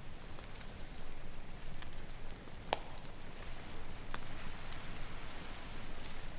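Campfire crackling, with scattered sharp pops of burning wood, the loudest just under three seconds in, over a steady wash of ocean waves on the shore.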